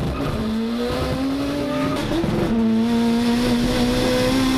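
Honda VTEC four-cylinder engine revving hard at high rpm under full acceleration, heard from inside the car. The note climbs for about two seconds, breaks briefly, then holds high and nearly steady.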